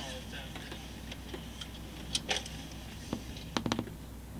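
Scattered light clicks and clinks of tableware at a restaurant table over a low steady hum: a pair about two seconds in, one a second later, and a quick cluster of three or four near the end.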